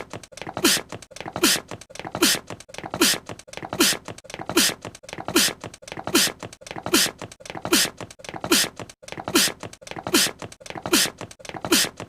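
A young male anime character's small sneeze, looped over and over: about fifteen identical sneezes, a little faster than one a second. Each is a quick burst of breath with a brief falling-pitched voice sound.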